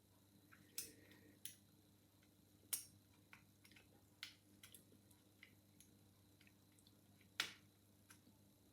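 Faint, irregular clicks and ticks of a piano-wire pick and tension tool working the levers inside an old Chubb five-lever mortice lock, with a few louder clicks among them.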